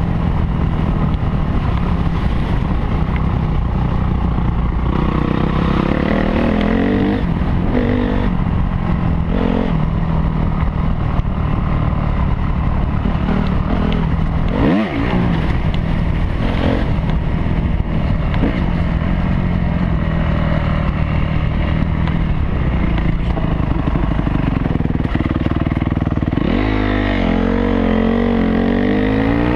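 Honda CRF250R four-stroke single-cylinder dirt bike engine running steadily under way. About halfway the throttle briefly closes and reopens, and near the end it revs up with a rising pitch as the bike accelerates.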